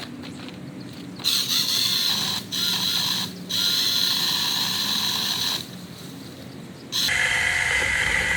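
Cordless electric mini chainsaw on a pole extension running in bursts, a high electric whine starting about a second in, dropping out briefly twice and stopping, then starting again near the end at a lower pitch as it cuts through a branch.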